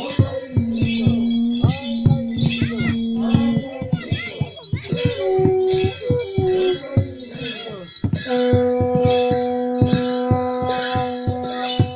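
Live dance music: a drum beaten in a steady rhythm with metallic jingling on the beats, and long held notes over it that change pitch a few times.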